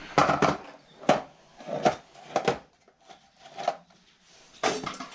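Hand tools knocking and clanking against metal while exhaust parts are worked loose under a car: about half a dozen sharp, irregular knocks, the loudest near the start.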